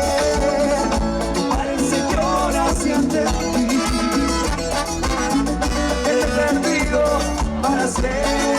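Live band playing an instrumental passage of Latin American dance music, with a melodic line over steady bass and percussion.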